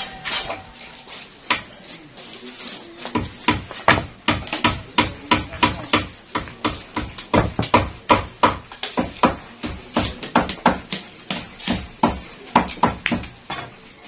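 Hammering: a steady run of sharp blows, about three a second, starting a few seconds in.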